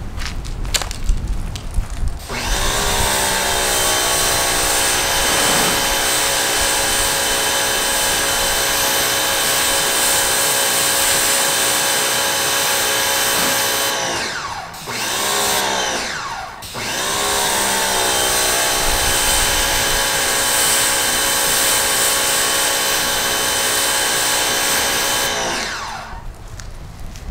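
Electric pressure washer rinsing a car windshield. Its motor spins up about two seconds in and runs steadily with the hiss of the spray. It cuts out around the middle with a short blip, starts again, and stops near the end.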